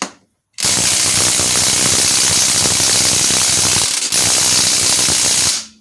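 DeWalt 3/8-inch cordless impact wrench hammering loudly on a car wheel's lug nut in two long bursts, with a short break about four seconds in. The nut does not break loose: the wrench lacks the power for a nut torqued to 100 ft-lbs.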